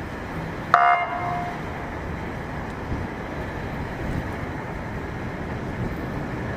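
Steady low rumble of outdoor street noise, with one short vehicle horn toot, sharp at the start, about a second in.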